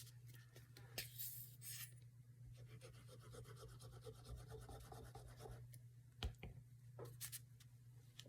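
Faint rustling and rubbing of paper and craft materials being handled on a journal page, with a few light taps, over a steady low hum.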